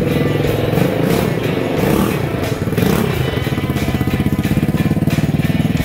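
Hammerhead Twister go-kart's small engine running as the kart drives off, revving with rising and falling pitch, then settling into a steady, evenly pulsing run.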